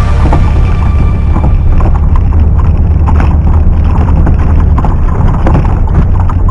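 Suzuki Vitara driving off-road: a loud, low engine rumble with scattered knocks and clunks. Background music fades out about a second in.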